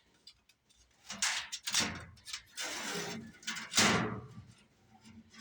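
A series of short scraping and sliding handling sounds, with a longer one about three seconds in.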